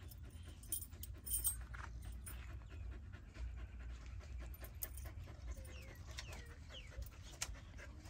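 Siberian husky panting, with a few sharp clicks about a second in and again near the end.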